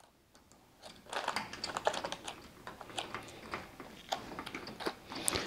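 Hand screwdriver turning small screws into the belt-connector bracket of a smart curtain track: a run of small, irregular clicks and scrapes starting about a second in.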